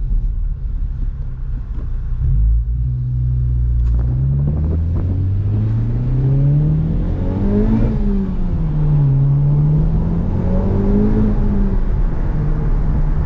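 Honda Civic Type R's turbocharged 2.0-litre four-cylinder, on its stock intake with an HKS cat-back exhaust, heard from inside the cabin under hard acceleration: the revs climb, drop about eight seconds in, climb again and settle near the end. The engine note is a fairly quiet one, which the occupants call too quiet.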